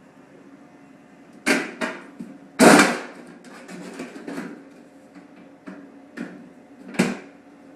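Sheet-metal duct and an S-lock strip being handled and lined up on it: a series of sharp metallic knocks and clatters, the loudest about three seconds in, with another clear knock near the end.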